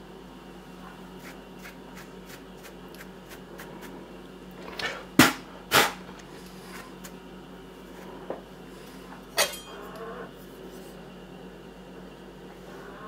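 Faint, evenly spaced clicks, then two sharp knocks about half a second apart about five seconds in, and another knock about nine seconds in.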